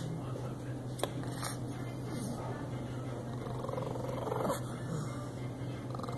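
A pug's noisy breathing close to the microphone, over a steady low hum.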